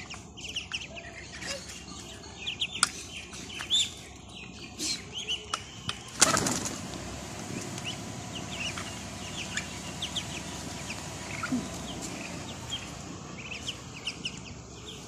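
Muscovy ducklings peeping, with many short high chirps. About six seconds in comes a sudden burst of wing flapping, the loudest sound.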